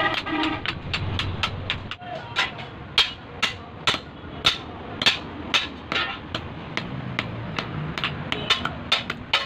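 Hand hammer striking an electric-motor armature held on a steel anvil block: a steady run of sharp metal-on-metal blows, about two a second.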